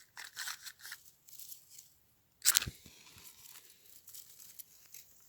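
Paper pages torn and crumpled by hand for fire tinder, a quick run of rustles, then one loud, sharp scrape about two and a half seconds in, followed by faint crackles.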